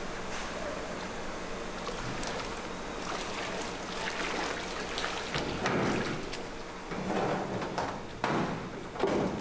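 Tteokbokki cooking on an iron griddle: a steady sizzling hiss over a low hum, with several sharp metal scrapes and clatters in the second half, the loudest near the end.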